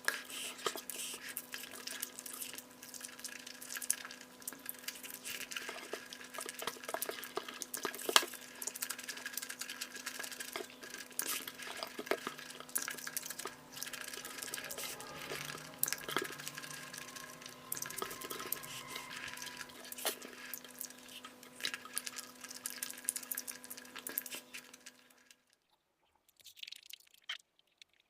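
Close-miked wet squishing and clicking of egg curry and rice being mixed and eaten, over a steady electrical hum. The sound cuts off a few seconds before the end, leaving only a few faint clicks.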